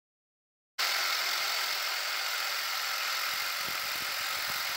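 A steady, even hiss that starts suddenly about a second in.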